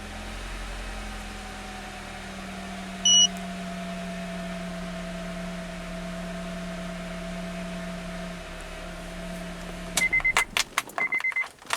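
Car engine idling with a steady hum during a charging-system test, with one short electronic beep about three seconds in. Near the end the hum stops and a quick series of clicks and short beeps follows.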